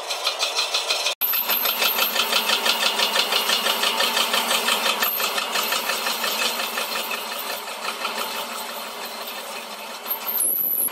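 Metal lathe turning a steel truck rim, the cutting tool scraping the spinning rim with an even rhythmic pulsing about four times a second. The sound cuts out for an instant about a second in and eases off somewhat in the second half.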